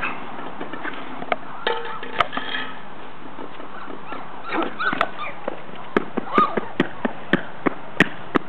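Young poodle puppies giving a few short whimpering yelps. In the second half, a regular run of sharp clicks comes about three times a second.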